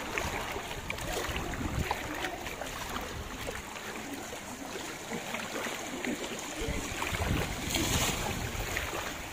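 Floodwater sloshing and swishing around the legs of someone wading through it, with wind rumbling on the microphone in gusts, strongest near the end.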